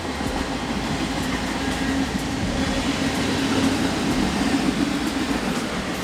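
A train passing on the railway line: a steady, loud rumble of wheels on the rails with a constant underlying hum.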